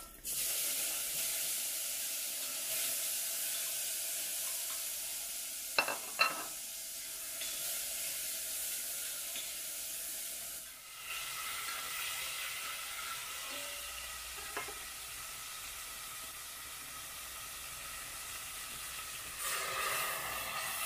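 Tomato and pineapple sizzling in hot oil in a stainless steel pot as they are stirred, with two light clinks of the utensil against the pot about six seconds in. Near the end water is poured into the pot.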